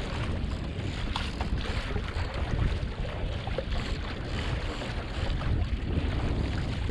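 Wind rumbling on the microphone over the steady rush and splash of water along the hull of a plywood sailing kayak moving under sail through a light chop.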